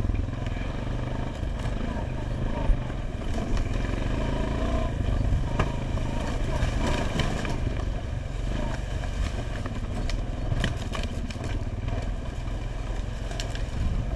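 ATV engine running steadily at low speed while riding a rough trail, with scattered clicks and clatter and one sharp knock about three seconds in.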